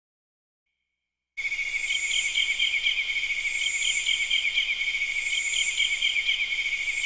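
Synthesized cricket-chirping sound effect from a Roland SC-D70 sound module. It starts suddenly about a second and a half in and runs as a steady, fast chirping trill that swells in waves about every second and a half.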